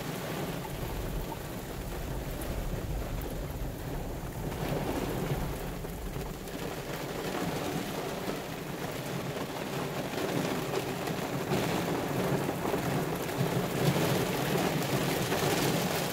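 Pouring rain drumming on a vehicle's roof and windshield, heard from inside the cab as a steady wash of noise. A low rumble runs under it for the first several seconds.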